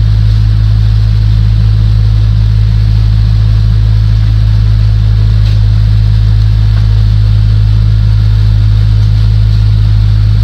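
Loud, steady low hum that never changes in pitch or level, with a faint hiss above it.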